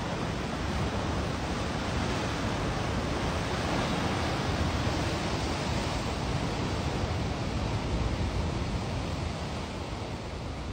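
Steady rushing of Pacific Ocean surf breaking and washing over coastal rocks.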